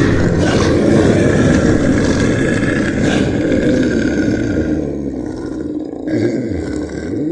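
A large animal's loud, harsh call, fading over about five seconds, then lower, shorter calls that rise and fall in pitch near the end.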